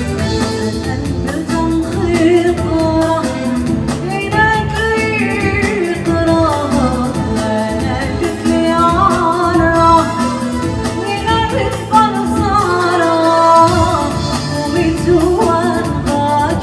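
A woman singing a song live into a handheld microphone, backed by electronic keyboards and a drum kit.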